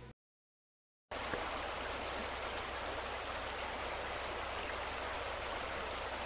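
Shallow river running over rocks: a steady rush of water that starts about a second in, after a moment of silence.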